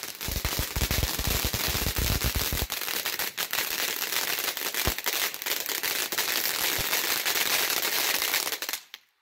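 TNT Bottle of Sparks fountain firework burning: a steady hiss of spewing sparks under a dense crackle of many tiny pops, with heavy low thumps in the first few seconds. It cuts off abruptly near the end.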